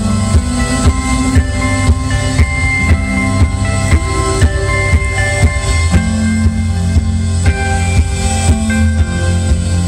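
Instrumental post-rock band playing live through a festival PA: ringing, sustained electric guitar lines over a steady drum beat and heavy bass.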